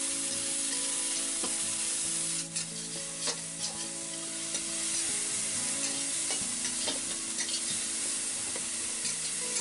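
Grated onion and ground mustard sizzling steadily in hot mustard oil in a metal kadhai. A steel spatula stirs and scrapes against the pan with scattered clicks as the mixture is sautéed.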